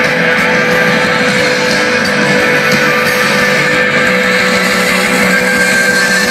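Live rock band playing loudly, with electric guitars to the fore, heard from the audience through a phone's microphone.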